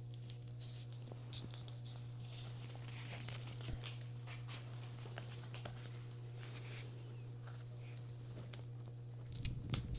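Faint rustling, creaking and small clicks of thick Brooks bar tape being stretched and wrapped around a drop handlebar, over a steady low electrical hum.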